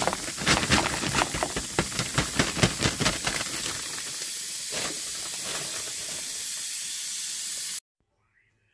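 A pot of chopped onions and spinach sizzling on the stove: a steady hiss with many sharp pops and crackles for the first three seconds, settling to an even hiss, then cut off abruptly near the end.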